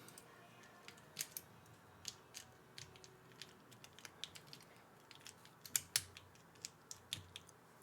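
Keycaps being pressed onto mechanical keyboard switches: light, irregular plastic clicks, with a couple of louder snaps about six seconds in.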